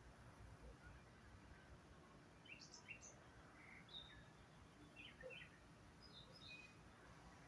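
Faint, scattered chirps and short calls from several birds over a steady low background rumble.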